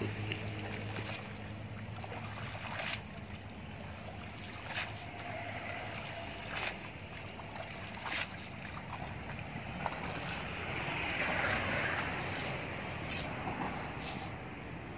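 Shallow river water sloshing and splashing as a cast net is hauled in by hand while wading, with several sharp splashes every second or two.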